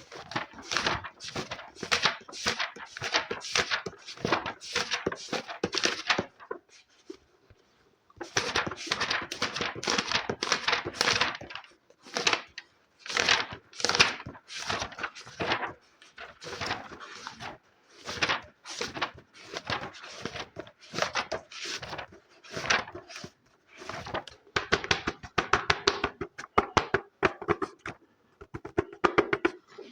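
Hands working rapidly on a book for ASMR: quick rhythmic tapping and scratching strokes, about three or four a second, with two short pauses and faster strokes near the end.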